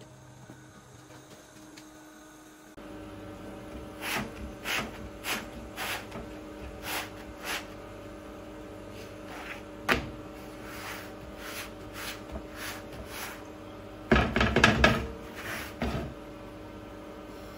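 A folded cloth pressing and dabbing a chapati on a flat iron tawa over a gas burner: a run of short scuffing strokes about two a second, a single sharp click, then a louder rattling clatter for about two seconds near the end as the pan shifts on the grate. A steady hum sits underneath.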